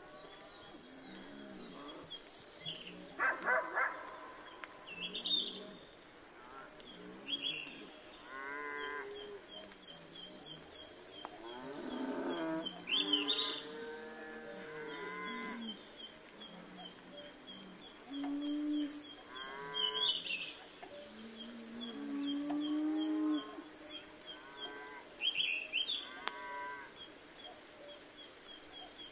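Cattle mooing in a string of calls, some drawn out for about a second, over a steady high-pitched chirping about three times a second.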